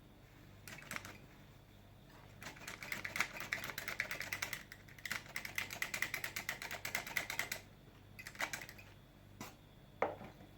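Flour sifter being worked to sift flour into batter: a fast, even run of clicks lasting about five seconds, with short bursts of clicking before and after it.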